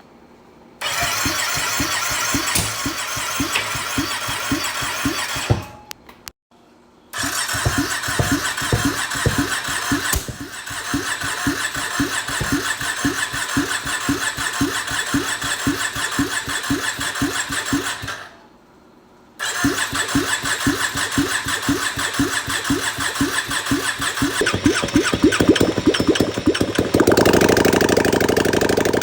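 The Can-Am Outlander 570's V-twin engine being cranked over by its electric starter in three long attempts, each with an even run of compression pulses, after the fuel system has been primed. The last attempt gets louder and heavier toward its end.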